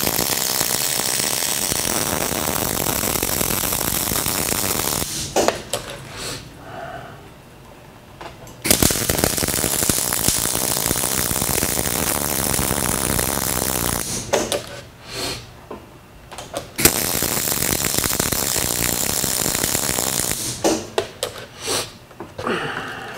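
MIG (wire-feed) welding arc crackling steadily as beads are laid on steel, in three runs several seconds long with short stops between them. A few scattered light knocks come near the end, after the welding stops.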